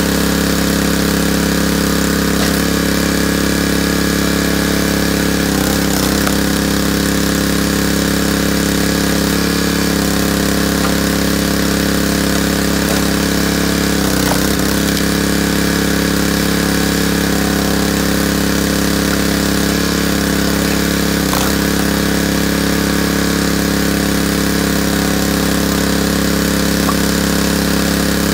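Small gas engine of a hydraulic log splitter running steadily at a constant speed. Its note dips briefly three times, with faint knocks, as the splitter works through logs.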